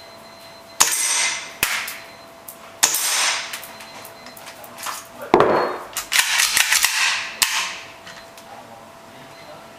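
Tokyo Marui Foliage Warrior gas blowback airsoft pistol firing: sharp cracks with the clack of the cycling slide about a second in and again near three seconds. From about five seconds in comes a second cluster of sharp clacks and clatter, ending in one last sharp clack; the slide is locked back and then returns forward during this time.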